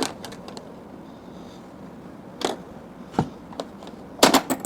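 Small marbles clicking and knocking against the plastic of a mini pinball toy: a few scattered clicks, single knocks in the middle, and a quick cluster of clicks near the end.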